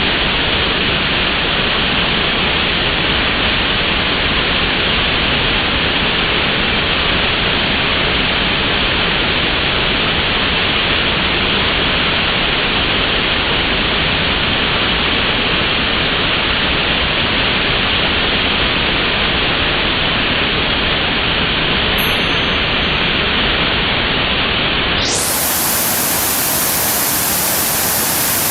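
Waterfall rushing as a steady, even noise, slowed down with slow-motion footage so it sounds dull and deep. About 25 seconds in it turns suddenly brighter and hissier.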